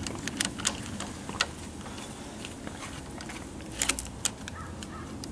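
Small sharp metal clicks and ticks from a screwdriver and the screw of a stock motorcycle bar end slider as they are worked loose and handled. The clicks come in clusters about half a second in and again near four seconds, over a low steady background hum.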